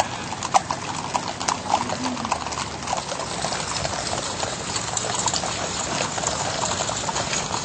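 Hooves of a cattle herd and its riders' horses clattering along a paved street, a dense, irregular run of overlapping clicks.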